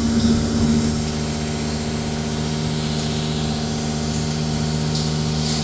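Vacuum tanker's engine and vacuum pump running as a steady drone while the suction hose draws water out of a cesspit.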